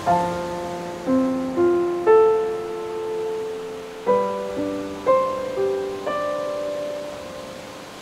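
Slow, gentle solo piano: single notes and soft chords struck about every half second to a second, each ringing and fading, with a short pause between phrases near the middle. Behind it runs a soft steady hiss of ocean waves.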